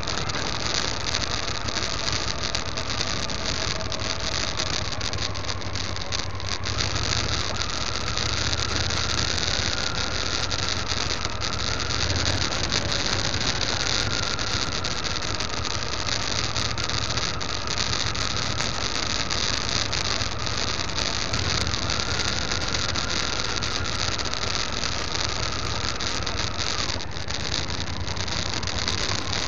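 Motorcycle engine running steadily while riding a gravel track, over a constant hiss of wind and road noise. A faint engine whine steps up in pitch about a quarter of the way in and drops back near the end.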